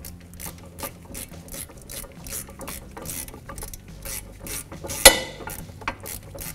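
A hand ratchet with a 7 mm Allen socket clicking steadily as it runs in a brake caliper slider guide-pin bolt. About five seconds in there is one sharper metallic clack.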